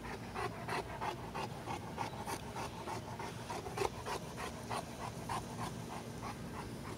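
Cane Corso panting close by, quick and even at about three to four breaths a second: a big dog overheated in hot weather.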